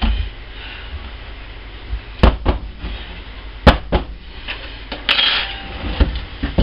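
Plastic mixing bowl and lid and a wooden soap mold being handled on a countertop: a handful of sharp knocks and clicks, with a brief rustle of paper about five seconds in.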